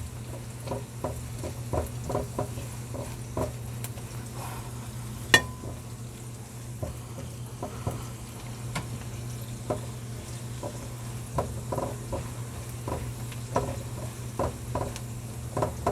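Onion and garlic sautéing in oil in a pan, stirred with a spatula: a light sizzle with repeated short scrapes and taps of the spatula on the pan, and one sharp clack about five seconds in. A steady low hum runs underneath.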